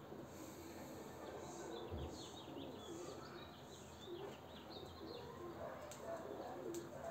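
Feral rock pigeons cooing softly, with small birds chirping quickly in the background.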